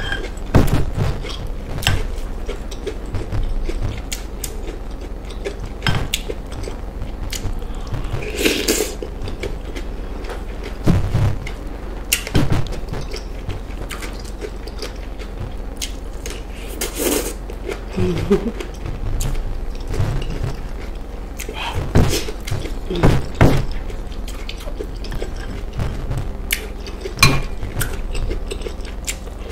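Close-miked eating sounds: wet chewing and mouth clicks of fish stew and ripe plantain, with a plastic spoon knocking and scraping in a glass bowl. Short clicks and knocks come throughout, with a few louder wet bursts.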